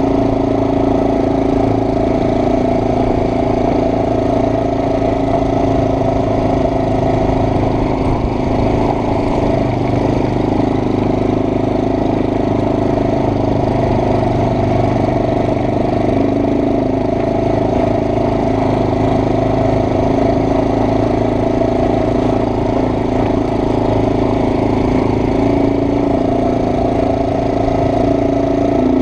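ATV engine running steadily as the quad rides along, an even engine drone with no change in speed.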